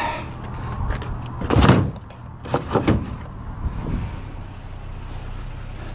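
A vehicle engine idling with a steady low hum, and a few loud clunks and rattles of scrap being handled and thrown into the load, the loudest about a second and a half in and two more just before three seconds.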